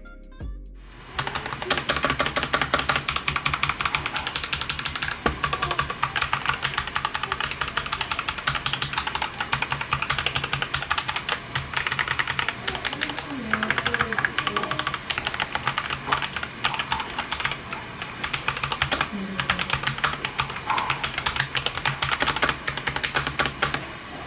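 Fast, continuous typing on a Durgod K610w Corona wireless mechanical keyboard: a dense run of key switch clicks and keycap clacks that begins about a second in.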